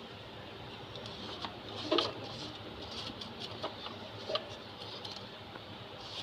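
Steady background hiss with scattered light clicks and knocks, the loudest a sharp knock with a brief squeak about two seconds in.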